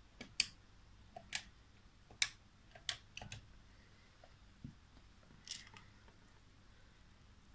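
Keypad buttons on a corded landline phone handset pressed to dial a number: about seven faint, short clicks at uneven intervals, the last about five and a half seconds in.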